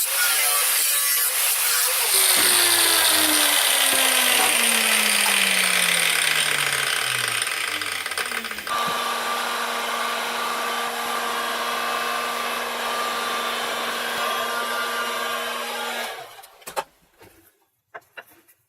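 Power tool running under load, its pitch sinking slowly over several seconds and then holding steady, until it stops about sixteen seconds in; a few sharp clicks follow.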